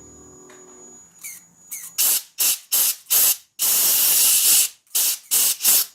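Compressed air blasted into the vents of a dusty brushed RC motor to blow the dust out: about seven short hissing puffs and one longer blast of about a second. Before the air starts, a faint steady hum fades out about a second in.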